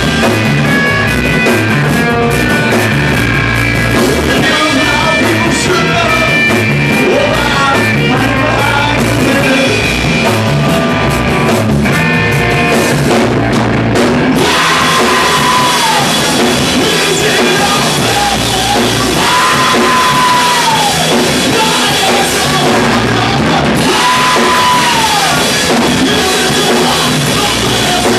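Live rock band playing loud: electric guitars through a Marshall stack, bass and drum kit. About halfway through, the music shifts to a part where a high note falls away in pitch every four to five seconds.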